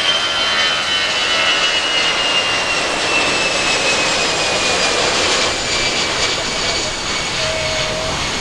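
Airbus A320's CFM56 jet engines at takeoff power: a steady rush of jet noise with a high whine that slowly falls in pitch.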